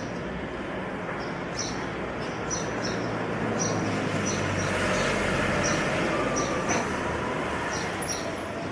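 Small birds chirping, short high chirps every second or so, over a steady hum of outdoor background noise that swells for a few seconds around the middle, like a passing vehicle.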